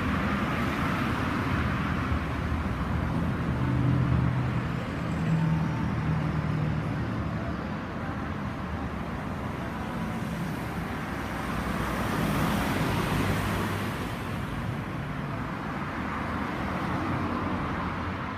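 Road traffic noise: vehicle engines running steadily, a little louder about four and twelve seconds in.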